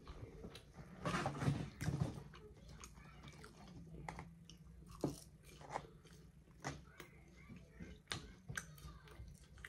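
A person chewing and biting into barbecued chicken, with a few louder bites in the first two seconds, then quieter chewing with scattered sharp clicks.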